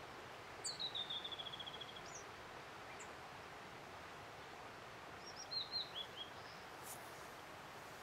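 Blue-and-white flycatcher singing two phrases over a steady hiss of background noise. The first, about half a second in, is a high note dropping into a fast run of repeated notes lasting about a second. The second, a couple of seconds later, is a short cluster of falling notes.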